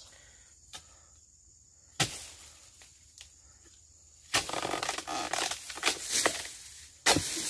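Long-poled chisel chopping into the base of an oil palm frond: a sharp chop about two seconds in and another near the end. Between them come a few seconds of leafy rustling and crackling as the cut frond comes down.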